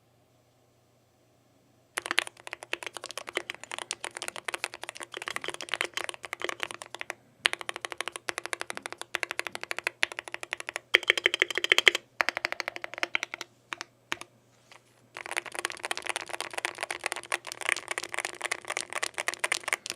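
Fast typing on an ARBITER Polar 65 keyboard with magnetic Hall-effect switches: a dense run of keystroke clacks. It starts about two seconds in, breaks off briefly twice, with a longer gap of a few seconds near the middle where only a few keys are struck, then picks up again.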